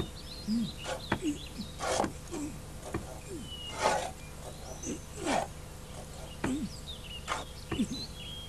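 Wildlife ambience: short high bird chirps and lower falling animal calls, with brief scratchy sounds at irregular intervals.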